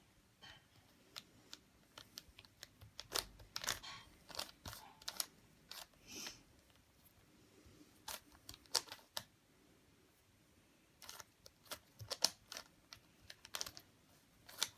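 Plastic Rubik's cube being turned by hand: irregular runs of quick clicks and clacks as the layers snap round, with short pauses between runs.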